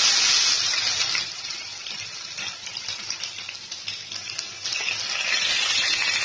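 Freshly added sliced onions sizzling in hot mustard oil in a kadai. The hiss is loudest at first, eases after about a second, then swells again as a wooden spatula stirs them, with light scraping against the pan.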